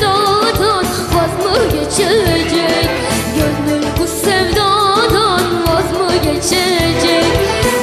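A young girl singing a Turkish song medley over instrumental accompaniment with a steady beat, the melody wavering and ornamented.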